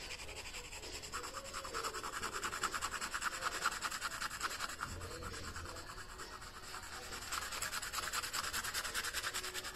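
White colored pencil scratching over tempera-painted cardstock in rapid back-and-forth shading strokes, several a second, kept up without pause.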